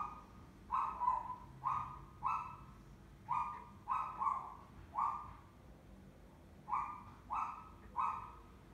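Small dog whining in short, high, repeated cries, about a dozen of them with a pause in the middle.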